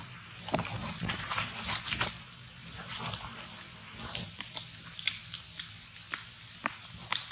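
Macaques calling in short, noisy bursts, with many sharp clicks and knocks in between.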